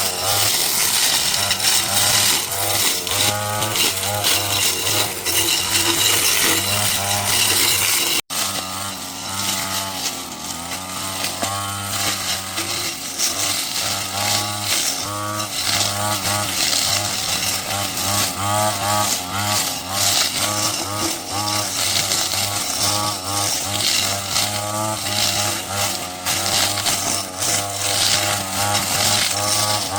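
Small two-stroke engine of a handheld garden power tool running, its pitch rising and falling repeatedly as it revs and bogs under load while cutting. It cuts out for an instant about eight seconds in, then carries on.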